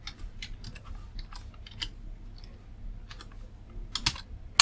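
Typing on a computer keyboard: a run of irregular key clicks, several a second, with a few louder keystrokes near the end.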